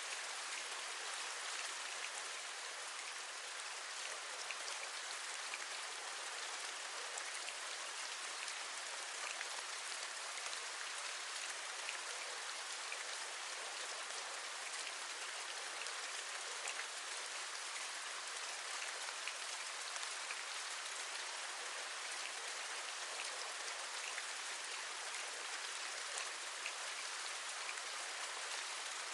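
Steady rain with raindrops tapping on a window: an even hiss dotted with many small, quick ticks of individual drops.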